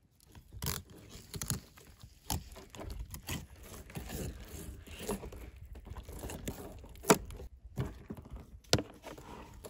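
Fillet knife slicing along a whitefish laid on a plastic cooler lid: irregular scraping and cutting as the blade works down the body, with handling noises and a few sharp clicks, the loudest about seven seconds in.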